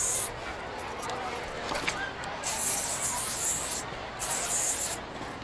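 Paint being sprayed in hissing bursts: a short one at the very start, a longer one of over a second about two and a half seconds in, and another just after.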